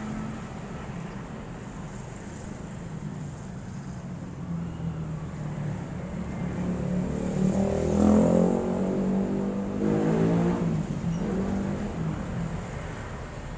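A motor vehicle's engine passing close by, growing louder to a peak about eight seconds in and fading away, over a steady low hum.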